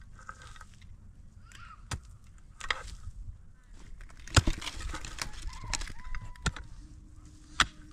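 Several sharp knocks at irregular intervals, with a burst of clatter around the middle.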